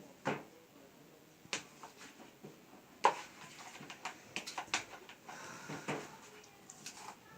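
Homemade slime being worked in its container: scattered short squishes and clicks, the loudest about three seconds in.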